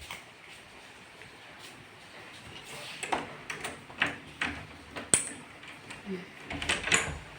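Light rain with a faint steady hiss. From about three seconds in it is broken by a run of irregular sharp taps and knocks, some with a short ringing ping.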